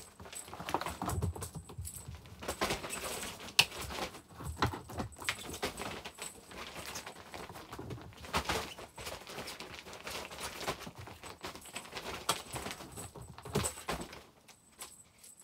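Two young cats at rough-and-tumble play, chasing a feather wand toy: irregular thumps, patters and scrabbling of paws as they pounce, land and run, with rustling of the bedding underneath. It dies down near the end.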